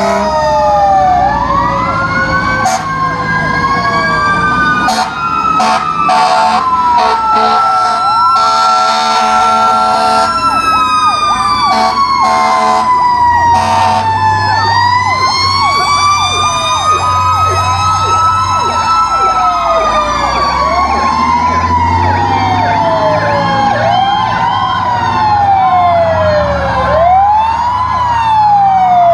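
Several fire truck sirens wailing together, their pitches sweeping up and down: some slowly, others cycling about once a second. Short loud blasts cut through between about 3 and 14 seconds in, over a low engine rumble.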